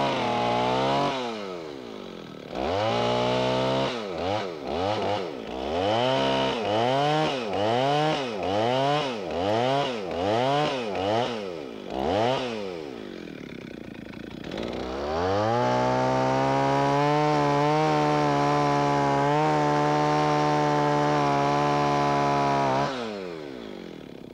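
Two-stroke chainsaw bucking a wind-thrown log with a bottom bind. It runs at full throttle, drops, and is then revved in quick pulses less than a second apart for about ten seconds. After a short idle it runs steadily at full throttle for about seven seconds through the cut, then drops to idle near the end.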